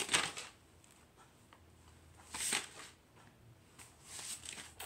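Paper pages of a sketchbook being turned by hand: a short rustle at the start and a louder papery swish about two and a half seconds in, with softer handling rustles of the book near the end.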